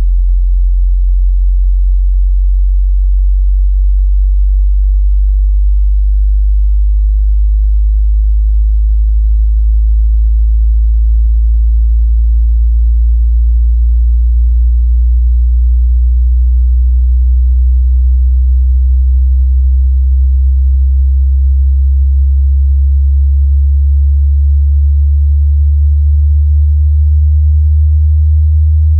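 A pure sine test tone from a hearing test, very deep in pitch, held loud and steady while it slowly rises in pitch. It is the low end of a hearing-test frequency sweep.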